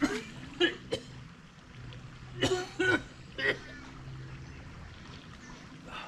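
A man coughing and gagging in several short bursts over the first few seconds, a reaction to the foul smell given off by an old styrofoam fish container he has just opened.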